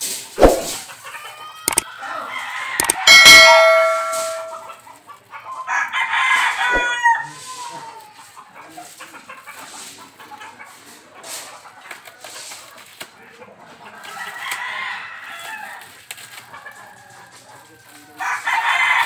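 Rooster crowing about four times, the loudest crow a few seconds in, with chickens clucking between. A few sharp knocks and the rustle of plastic wrapping are heard as well.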